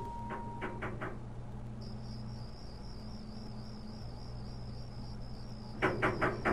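Crickets chirping in an even, pulsing trill over a low steady hum, night ambience. A quick run of taps comes in near the end.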